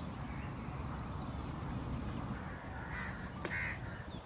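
Two short bird calls about three seconds in, over steady low outdoor background noise.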